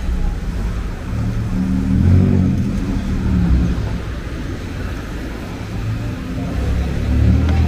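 Street traffic: cars driving past one after another, the sound of engines and tyres swelling as each goes by.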